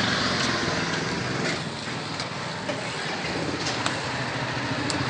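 Street noise with a vehicle engine running nearby, steady in the first two seconds and then fading under the general traffic hiss, with a few faint clicks.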